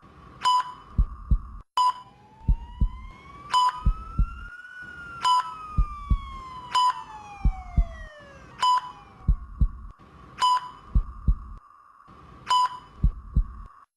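Intensive-care ambience: a patient monitor beeps a short, high tone about every one and a half to two seconds, over a low, paired heartbeat thump. A slow gliding tone rises and then falls over several seconds, like a distant siren.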